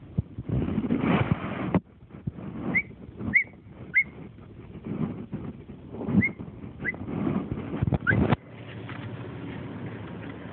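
A large dog giving short, squeaky, high-pitched barks, about six of them in loose groups. Each is a brief chirp rather than a deep woof. Low rumbling and rustling noise runs underneath.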